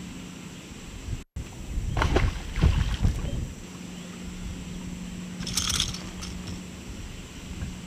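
Handling knocks and thumps on a bass boat's deck, a cluster of them about two to three seconds in, then a brief high crackle near six seconds, over a steady low hum.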